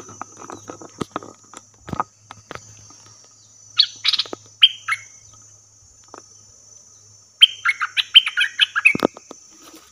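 Caged decoy bulbul singing bright, whistled phrases: two short phrases about four seconds in, then a longer run of quick notes from about seven and a half seconds. A steady high-pitched hiss runs underneath, with a few rustles and knocks, and one sharp knock just after the song.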